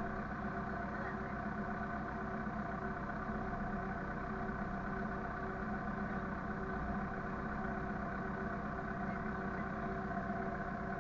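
Vehicle engine running steadily at an even speed, with no revving.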